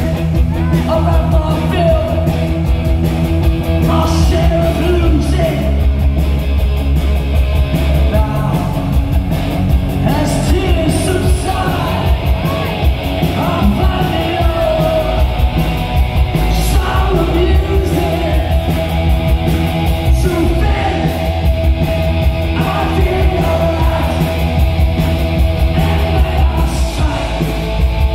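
Live punk rock band playing loud: electric guitars, bass and drums, with a male singer singing into a microphone over them.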